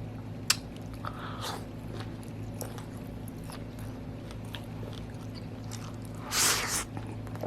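A person chewing a mouthful of food close to the microphone, with small wet clicks and light crunches, over a steady low hum. A brief louder rush of noise comes about six and a half seconds in.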